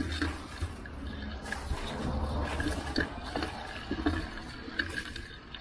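Bicycle riding noise picked up by a bike-mounted action camera: a steady low rumble of wind and road on the microphone, with scattered light rattles and clicks from the bike.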